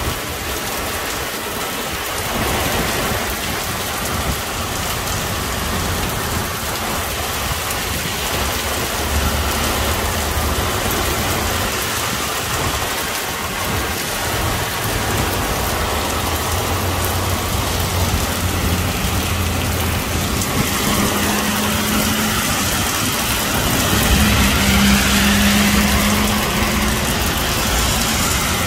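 Heavy rain pouring down onto pavement and parked vehicles, a steady hiss. A low engine hum rises under the rain in the second half.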